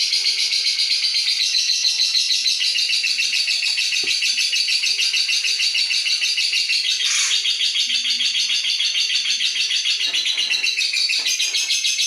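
Lovebird giving a long, unbroken ngekek: a very fast, steady run of repeated high chattering notes without a pause.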